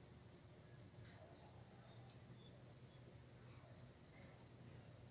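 Crickets trilling: one faint, steady, high-pitched trill that runs on without a break.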